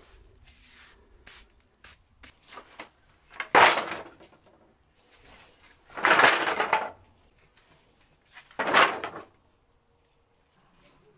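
Old wooden planks dropped onto a pile on concrete, clattering loudly three times about two and a half seconds apart, with a few small knocks and rustles before.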